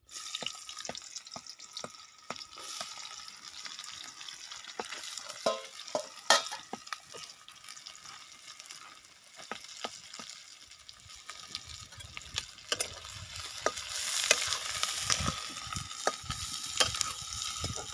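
Food sizzling in a hot pan while a spoon stirs and scrapes against it, with scattered sharp clicks. The sizzle grows louder near the end.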